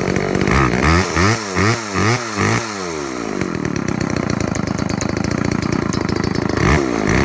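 1986 Homelite Super 2 chainsaw's small two-stroke engine running, the throttle blipped quickly five or six times in a row about a second in, then settling to a steadier run before one more rev near the end.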